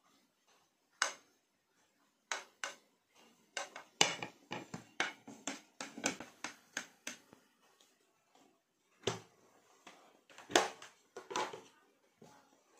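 Plastic rice paddle patting and tapping a mound of cooked rice on a plastic plate: a run of quick sharp taps, thickest in the middle, with a few louder knocks scattered through.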